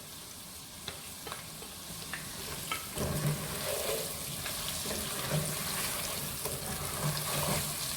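Diced potatoes frying in oil in a pan with salt, pepper and turmeric: a steady sizzle, with a few sharp clicks in the first few seconds.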